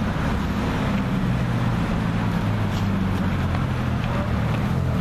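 Ferrari 458 Speciale A's naturally aspirated V8 running steadily at low, even revs.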